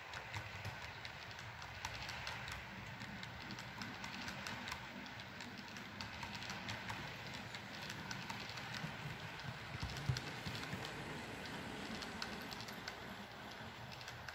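HO-scale model of a Rhaetian Railway Glacier Express train running past on model track: fast, irregular clicking of the wheels over the rails above a steady low rumble, with one louder knock about ten seconds in.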